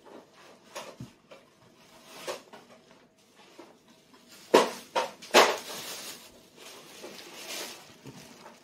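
Light clicks and knocks of tableware on a table during a toddler's meal. The two loudest knocks come about four and a half and five and a half seconds in, followed by faint rustling.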